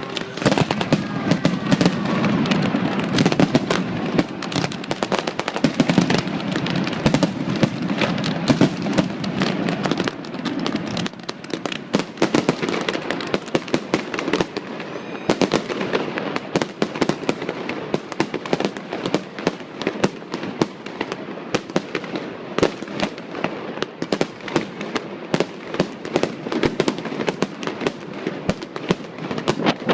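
Aerial fireworks display: shells bursting in a rapid, irregular run of overlapping bangs and crackles, with a heavier rumble over roughly the first ten seconds.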